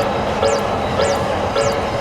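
Japanese railroad crossing alarm ringing its repeated electronic 'kan-kan' bell, a little under two strikes a second, over a steady rushing noise.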